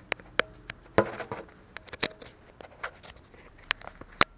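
Handling noise from a handheld camera being moved: scattered sharp clicks and light taps at irregular intervals over a low room hum, with a louder click near the end.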